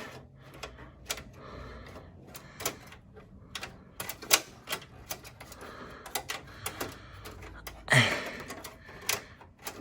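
Irregular clicks and taps of plastic and metal computer parts being handled and pushed into place inside a workstation case, with a part that will not seat.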